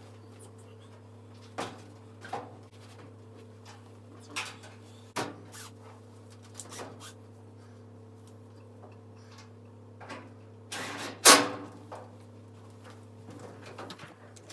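Sheet-metal knocks and clicks as a clothes dryer's front panel is handled and fitted back into place, a few scattered, with the loudest knock near the end, over a steady low hum.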